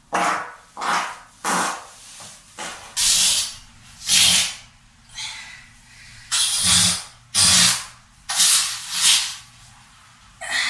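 A string of about a dozen short farts, one after another with brief gaps, mostly airy and hissing.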